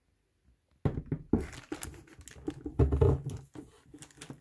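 Steering wheel being set down into its cardboard box onto plastic wrap: irregular crinkling of the plastic and knocks of cardboard handling, starting about a second in and trailing off near the end.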